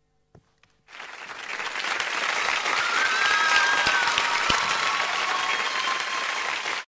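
Audience applauding, starting suddenly about a second in, swelling over the next couple of seconds, then cut off abruptly near the end.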